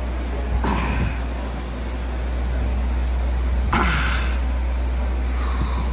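A man grunting with effort twice, about a second in and again just before four seconds in, over a steady low hum.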